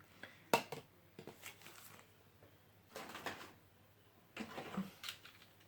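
Small handling noises of plastic Beyblade parts and packaging on a table: a couple of sharp clicks in the first second or so, then softer rustling and scraping, once about three seconds in and again near the end.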